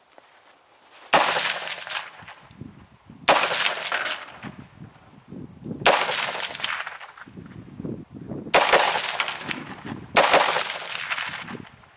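Five single rifle shots from an AR-15 with a 16-inch barrel and a Spikes Tactical Dynacomp compensator, firing 5.56mm XM193 ammunition. The shots come two to three seconds apart, each a sharp crack that trails off in an echo over about a second.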